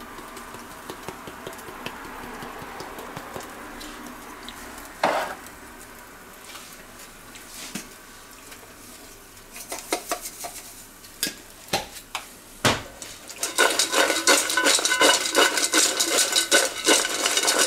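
Crinkle-cut fries being shaken and tossed in a stainless steel bowl, rattling against the metal, starting about two-thirds of the way in. Before that there are only a few light taps and clicks over a faint steady hiss.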